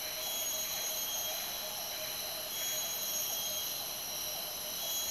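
Rainforest insect chorus: several insects holding steady high-pitched tones at once, over a lower, rapidly pulsing chirr.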